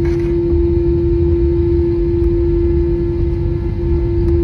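Airbus A321-231 cabin noise while taxiing, its IAE V2500 engines at idle: a steady hum with one constant tone over a low rumble.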